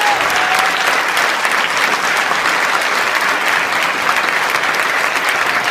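Audience applauding steadily: many hands clapping in a dense, even wash.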